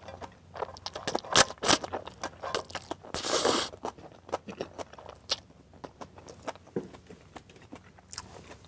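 Close-miked eating of saucy stir-fried instant noodles: wet chewing and lip-smacking clicks, with one long slurp of noodles about three seconds in.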